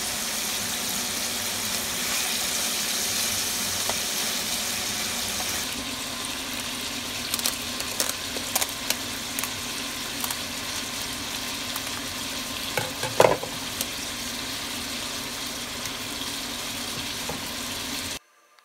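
Sliced duck meat sizzling in its own fat in a frying pan while being stirred, an even hiss for about six seconds. After that the hiss turns lower and steadier, with scattered clicks and taps and one louder knock a little past the middle, before the sound cuts off suddenly near the end.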